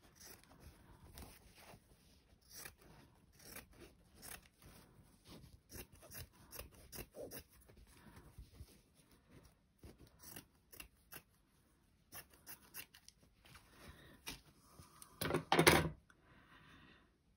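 Scissors cutting through thin cotton fabric: a run of small, crisp snips with short pauses between them. A brief, louder sound comes near the end.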